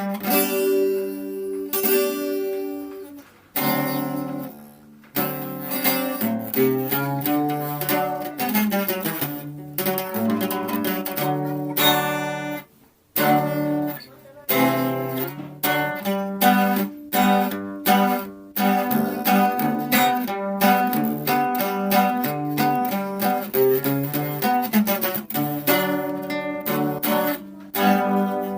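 Acoustic guitar being played: plucked melody notes and chords over bass notes, with a brief pause about halfway through.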